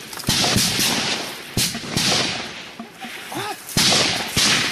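Gunfire in the forest: about six irregularly spaced shots, each a sharp crack followed by a long echoing tail.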